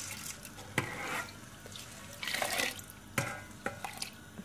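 Soaked whole masoor lentils poured from a steel bowl into a steel pan of water, splashing in two gushes, with a few sharp clicks in the second half.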